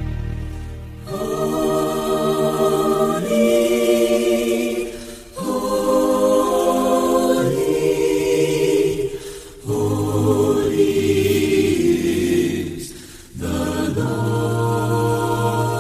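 Backing-track music with a wordless choir holding sustained chords, in phrases of about four seconds each separated by short breaths.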